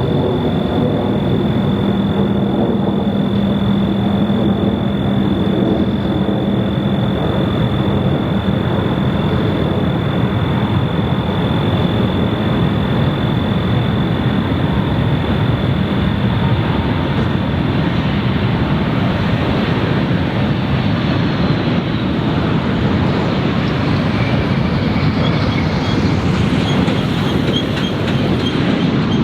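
Jet airliner engines running loud and steady, with a high whine that fades out a little past halfway and faint rising high tones near the end.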